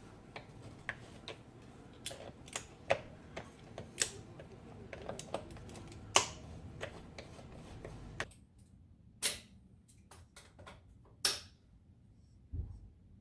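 Irregular sharp metal taps and clicks of hand tools on an NP208 transfer case as its corroded aluminum extension housing is worked loose. A low background hum stops about eight seconds in, and the clicks grow sparser after it.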